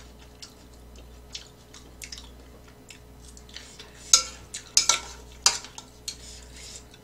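Metal chopsticks and a spoon clinking and scraping against a stainless steel pan as noodles are scooped up. Light scattered clicks, then several louder sharp clinks about four to five and a half seconds in.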